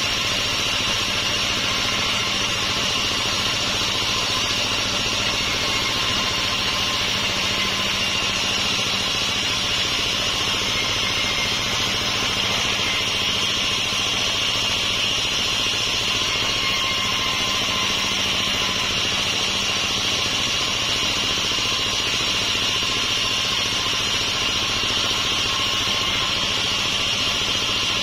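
Homemade band sawmill running and ripping long mahogany boards, a steady, unbroken machine sound of blade and motor with no pauses.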